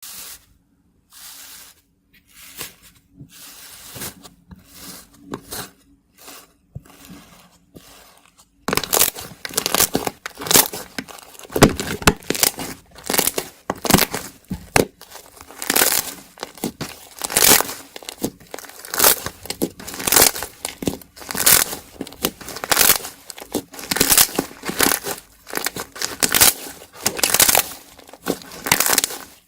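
Iceberg slime being pressed and squeezed by hand, its hardened crust crackling and crunching in repeated surges. The handling is sparse and quieter at first, then turns louder and denser about a third of the way in.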